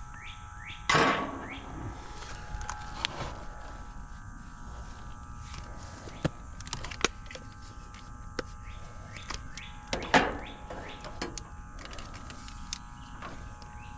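Scattered clicks and knocks, with louder ones about a second in and about ten seconds in, over a steady faint hum.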